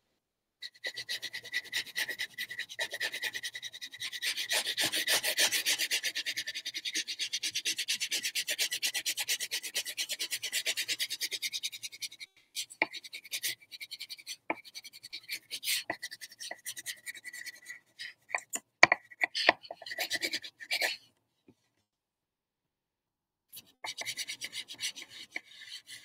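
Wax crayon scribbling rapidly back and forth on paper, a dense scratchy rubbing of many quick strokes. After about twelve seconds it thins to separate strokes, stops for a couple of seconds, and starts again near the end.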